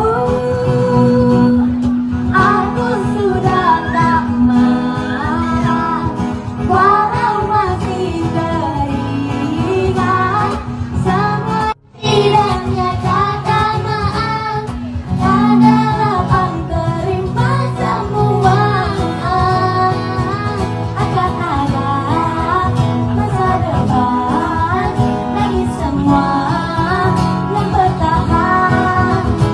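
A woman and a young girl singing into microphones to a man's acoustic guitar accompaniment. The sound cuts out for a moment about twelve seconds in.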